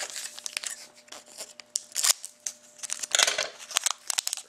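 Foil wrapper of a hockey trading-card pack being opened, crinkling and crackling in many small sharp ticks, with a louder rustle about three seconds in.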